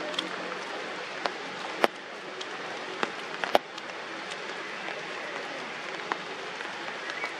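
Steady rain falling on forest foliage, an even hiss broken by scattered sharp drips striking leaves, the loudest about two and three and a half seconds in.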